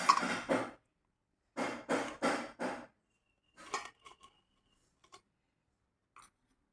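Utensil scraping ground grated coconut into a small measuring bowl and pressing it down: two spells of scraping, then a few light clinks.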